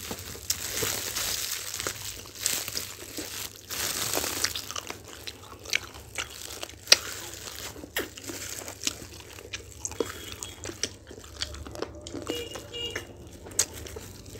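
Eating sounds: biting and chewing sauce-coated fried chicken wings, with disposable plastic gloves crinkling. The sound is a mix of crinkly rustling and many short, sharp clicks and smacks.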